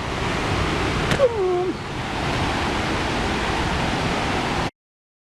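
Steady roar of a large waterfall, Sgwd yr Eira, heard from close by. A brief falling call sounds about a second in, and the sound cuts off abruptly near the end.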